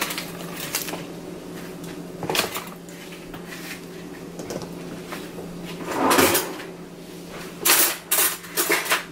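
Scattered kitchen knocks and clunks over a steady low hum: a single knock a couple of seconds in, the loudest clunk about six seconds in, then a quick run of sharp knocks near the end.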